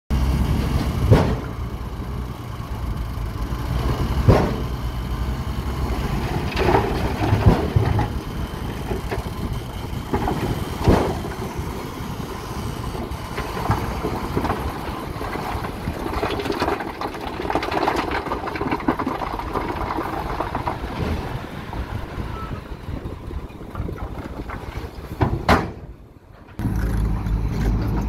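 Shacman dump truck's diesel engine running steadily while the tipper bed is raised and the load of dirt and rocks slides out, with a rushing clatter of falling rock and several sharp knocks. Near the end the sound cuts off briefly, then another machine's engine is heard.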